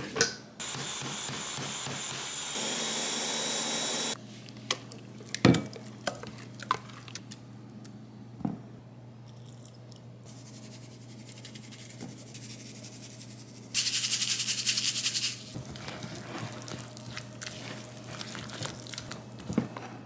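Ninja countertop blender running for about three and a half seconds, getting louder partway through as it blends the kimchi paste ingredients. A few light kitchen knocks and clinks follow, then a short, louder burst of high hiss past the middle.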